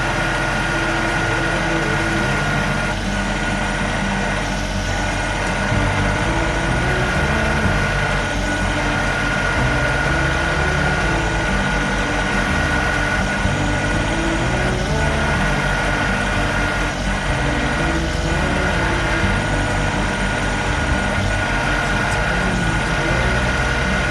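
Compact tractor engine running steadily, with a steady high-pitched whine over it. Its low note changes about six seconds in.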